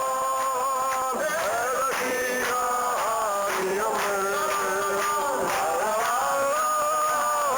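Live folk music: a song with singing, long held, wavering notes over a steady rhythmic accompaniment.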